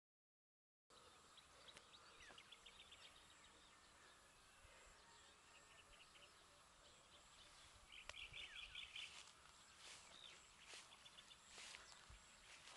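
Faint rural outdoor ambience with small birds chirping now and then, and a quick run of chattering bird notes about eight seconds in. The sound is cut out entirely for the first second.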